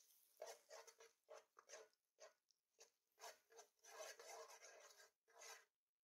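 Quiet sizzling and scraping in a hot oiled frying pan as fat is swiped around it, in a dozen or so short irregular strokes that stop abruptly near the end.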